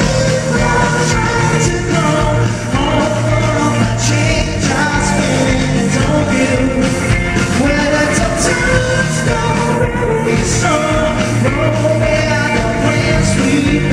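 Live rock-pop band music with a male vocalist singing into a microphone, loud and continuous.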